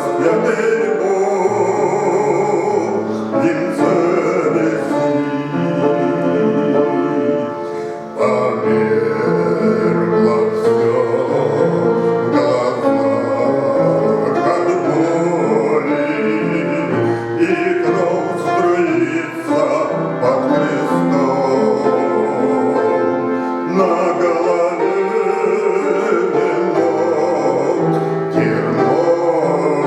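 A man singing a Christian hymn with instrumental accompaniment.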